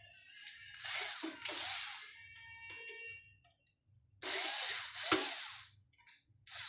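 Electric screwdriver running in two bursts of about a second each, with a sharp click in the second, while the patient monitor's casing is taken apart to reach the mainboard.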